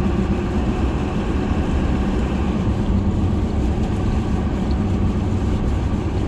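Inside the cab of a loaded truck cruising at steady speed: a constant engine drone and loud tire hum. The tires hum louder than normal because of a bad wheel alignment.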